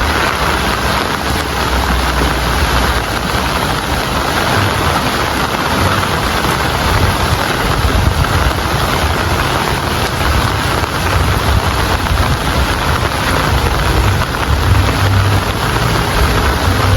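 Steady rain falling, an even hiss of drops, with a low rumble underneath that swells and fades.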